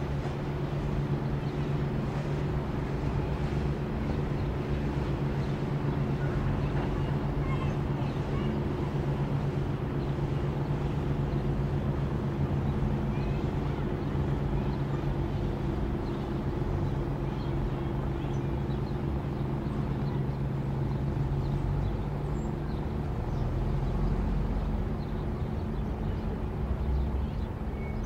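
Ambience of pool water lapping, under a steady low mechanical hum, with faint scattered bird chirps.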